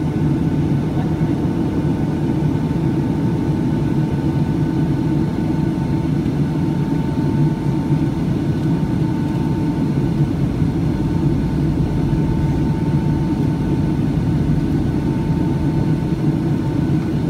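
Steady in-flight cabin noise of a Boeing 757-200, heard from a window seat: a deep, even rush of jet engines and airflow with a faint steady whine above it.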